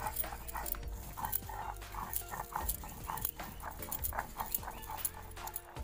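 White mustard seeds being ground on a sil-nora: a stone muller rocked back and forth on a flat pitted grinding stone, giving a quick series of gritty scrapes and knocks, several a second.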